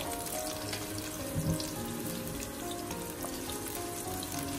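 Garlic and ginger slices sizzling in hot lard in a wok as they are stir-fried, with background music.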